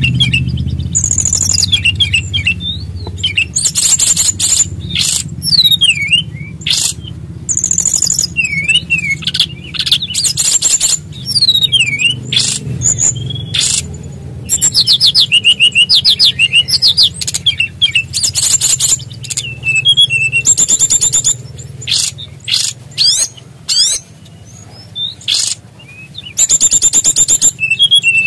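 SRDC (sikatan rimba dada coklat) songbird singing loudly and continuously, repeating high, rapid buzzy trills between sliding whistled notes, over a steady low hum.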